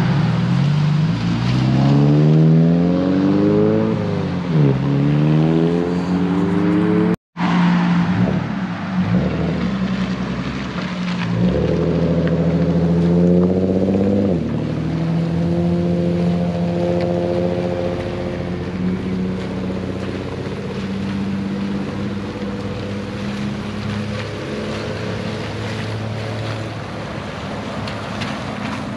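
Cars' engines accelerating away one after another. First a rising rev that drops about four seconds in as the car shifts up, then rises again. After a sudden break about seven seconds in comes more revving, then a steady engine drone that slowly fades.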